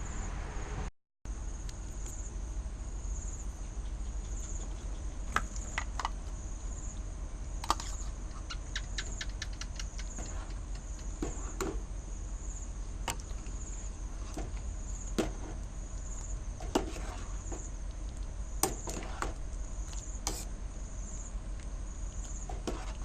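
Insects chirping in a steady, high, evenly pulsing trill, with scattered light clicks and taps over it.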